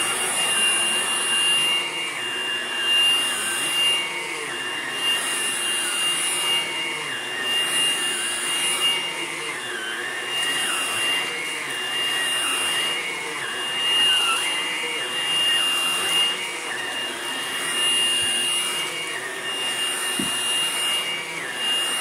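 Hoover Blade+ cordless stick vacuum running on carpet: a steady high motor whine over rushing air, with the pitch and airflow swelling and easing every second or two as it is pushed back and forth.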